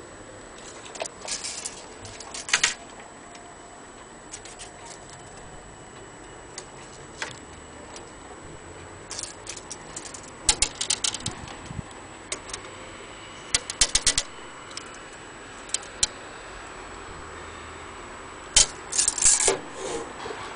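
Steel tape measure rattling and clicking in irregular bursts as it is handled and held against a wooden clock case, the loudest cluster near the end.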